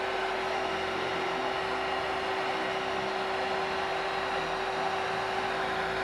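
Hot-air dryer blowing steadily, with a constant hum, its hot air played over freshly poured epoxy resin to warm the surface and spread the white resin into foam.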